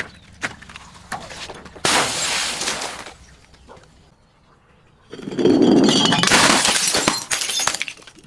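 Glass being broken and crushed: a crunching burst about two seconds in, then a longer, louder crunch with a scatter of sharp clinks from about five seconds until just before the end.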